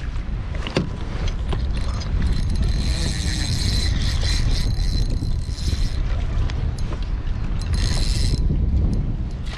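Fishing reel working while a barracuda is fought from a kayak: a high whirring buzz for about three and a half seconds, then again briefly near the end. Wind rumble on the microphone runs underneath.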